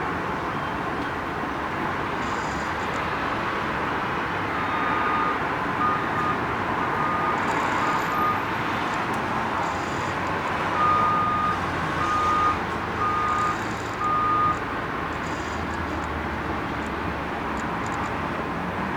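Sony DT 18-135mm F3.5-5.6 SAM lens's autofocus motor driving focus: a series of short, high whines, about nine in two runs, over a steady hiss.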